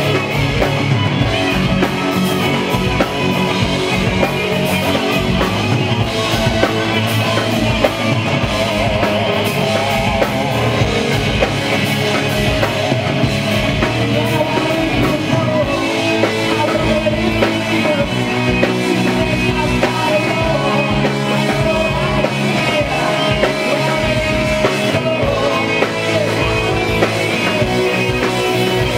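Folk metal band playing live: distorted electric guitars, keyboards and drum kit, with a woman singing.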